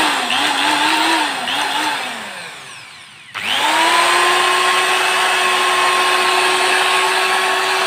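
Super 700 W corded electric drill running with an empty chuck. For the first couple of seconds the trigger is feathered, so the motor whine wavers up and down before winding down. About three seconds in the trigger is pulled again and the motor spins up quickly to a steady no-load whine.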